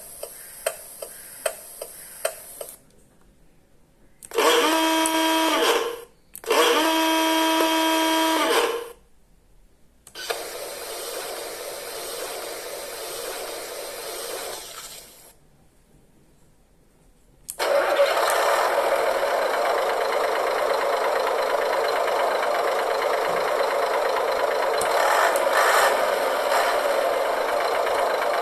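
Dasmikro Mini V3 miniature RC truck sound module playing its sound set through a small speaker. First comes clicking about twice a second, then two long horn blasts and several seconds of hiss. After a short pause, a simulated truck engine starts and runs steadily.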